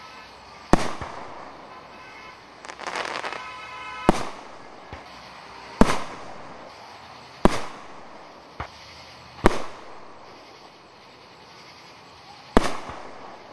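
Aerial fireworks shells bursting overhead: about six loud, sharp bangs spaced one to three seconds apart, each with a short fading echo, and a few smaller pops between them.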